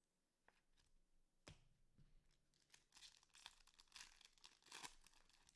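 Faint crinkling and rustling of plastic wrap, with a few light clicks and taps, as trading cards are handled and sorted. The crinkling is thickest in the second half.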